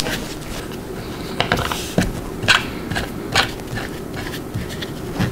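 Bench-cookie legs on threaded risers being screwed by hand into the insert nuts of a plywood bench top, with scraping and a scattering of sharp clicks and knocks.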